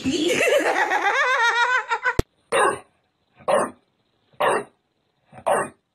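A person laughing in a high, wavering voice for about two seconds. After a sharp click, a bulldog barks in short single barks about once a second.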